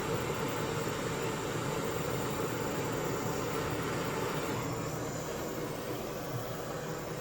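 Gas torch burning with a steady hiss while it heats a copper cable lug in a vise for soldering 4/0 battery cable. The upper hiss softens slightly about four and a half seconds in.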